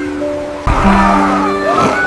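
Background music of held notes; about two-thirds of a second in, a louder noisy rush joins it and carries on under the music.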